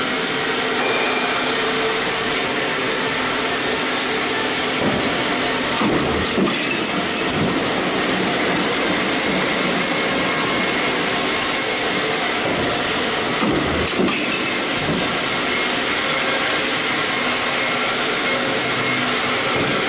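Mechanical stamping press running a progressive die: a steady machine noise with a few sharp knocks of the die at uneven intervals.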